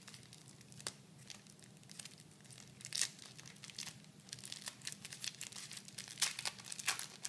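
Small plastic wrapper of a screen-cleaning cloth being torn open and handled, giving irregular crinkling crackles.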